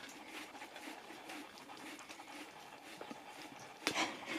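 Husky licking a hard carob Easter egg held in a hand: faint, irregular wet licks and smacks of the tongue on the egg, with a louder smack near the end.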